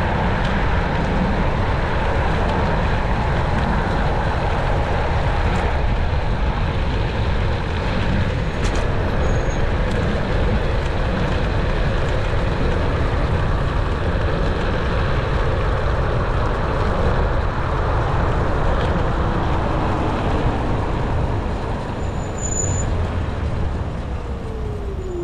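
Steady rushing wind and road noise from riding a NIU KQi3 Pro electric scooter along a city road in traffic.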